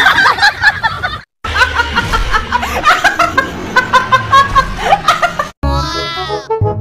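A woman laughing hard in rapid bursts for several seconds, followed near the end by a short musical sound effect with stepped notes falling in pitch.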